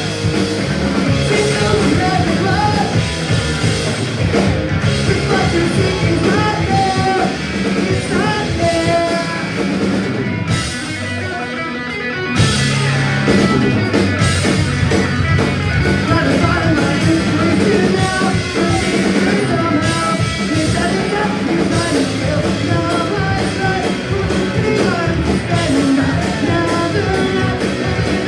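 A live punk rock band playing loud: electric guitars, bass and drum kit with sung vocals. The band thins out briefly about ten seconds in, then the full band comes back in.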